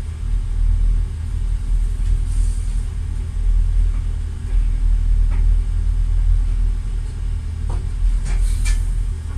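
Passenger train heard from inside the carriage: a steady low rumble, with a few short clicks and knocks near the end.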